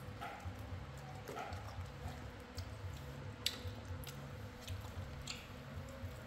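Monkeys biting and chewing pieces of mango, with a few short clicks, the sharpest about halfway through.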